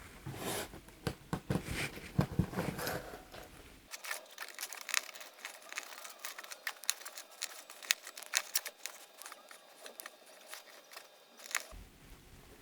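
Small plastic LEGO pieces clicking and rattling as they are handled and pressed together, with many short, sharp clicks.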